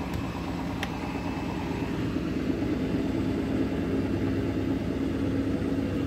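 Grundig front-loading washing machine with its drum turning on a load of towels. Its motor gives a steady hum that grows slightly louder as the drum works toward spin speed once the load has been distributed. One light tap comes less than a second in.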